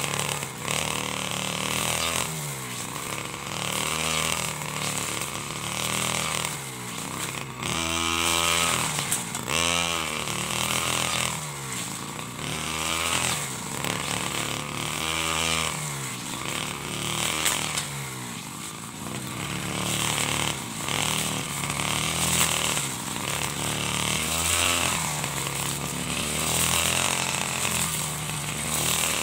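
A 49cc side-mounted brush cutter engine revs up and drops back over and over, roughly every two seconds, as it cuts through standing rice stalks.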